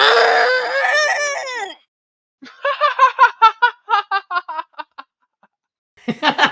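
Cartoon-style character laugh sound effects: a long wavering cry, then a quick staccato laugh of about a dozen short pulses that trail off, and another laugh starting near the end.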